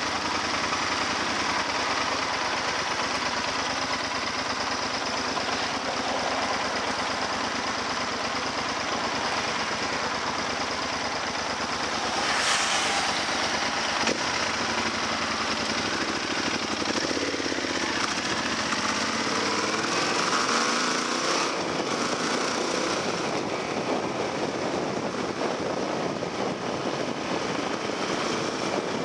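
Motorcycle running along at town speed, heard on board with wind and road noise on the microphone. The machine is a Yamaha XT1200Z Super Ténéré, whose engine is a parallel twin. Its engine note rises and falls a few times past the middle as the bike speeds up and slows.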